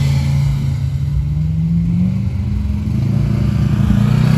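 Side-by-side UTV engine running as the machine drives across loose sand, its note dipping and climbing a little with the throttle.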